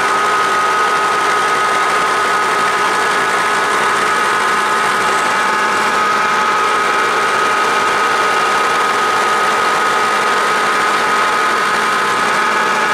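Bridgeport vertical milling machine truing up an aluminium casting with a carbide end mill: a steady machining noise with a high, even whine.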